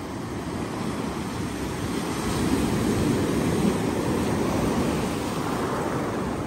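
Sea surf washing onto the shore, a steady rushing noise that swells louder about two to four seconds in, then eases.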